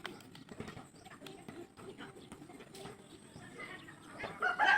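Scattered light taps and knocks, then a rooster starts crowing near the end.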